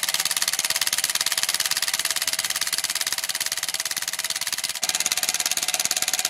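Ryobi One+ 18 V cordless impact wrench hammering on a car wheel nut in its first speed (180 Nm): a rapid, steady rattle of impacts with a momentary break about five seconds in. The nut does not break loose.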